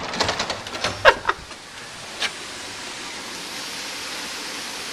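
A few sharp knocks and a brief call in the first second or so, then a steady, even hiss of water.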